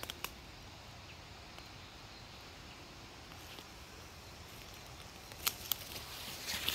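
Faint outdoor background with a few footsteps crunching on dry leaf litter and twigs: a couple just after the start, then several more from about five and a half seconds in.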